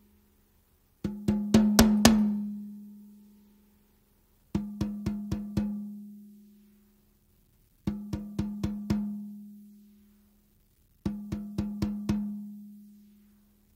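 A kit drum with a Remo Emperor Clear two-ply head struck with a wooden drumstick in four short groups of strokes: about four hits about a second in, then three quick runs of about six. Each group is left to ring out, with a low sustained tone fading over a couple of seconds.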